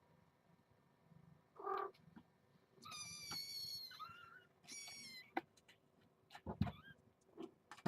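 Kitten mewing: a short call, then two high-pitched mews, a long one about three seconds in and a shorter one just after. A few soft knocks follow near the end.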